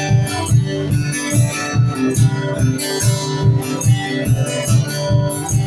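Guitar strummed in a steady, even rhythm, an instrumental passage between sung lines.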